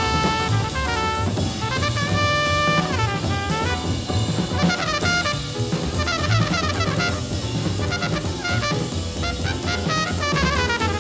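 Hard-bop jazz group playing: a horn solo of long held notes and quick runs over busy drum-kit playing.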